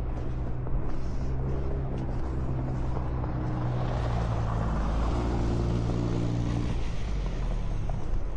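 A car driving past slowly: engine hum and tyre hiss on the snowy street swell to a peak about halfway and fade away near the end.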